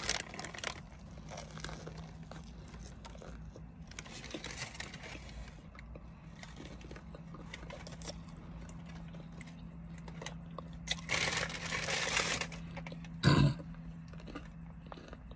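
Close-up chewing of a crispy fried chicken sandwich: crunching and wet mouth clicks, with two denser crackly stretches, one about 4 seconds in and a longer one about 11 seconds in, and a short loud sound about 13 seconds in. A steady low hum runs underneath.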